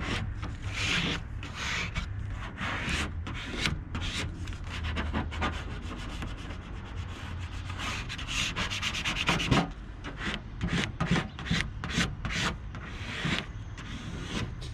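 Rubbing a vinyl decal down onto a car's painted body panel by hand or with a plastic card, to press it flat after the backing is removed: quick repeated scraping strokes, fastest in the second half, with a low steady hum underneath.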